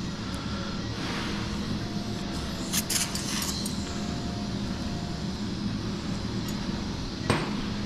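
Steady hum of operating-room ventilation, with a few light metallic clicks of surgical instruments: a cluster about three seconds in and a sharper click near the end.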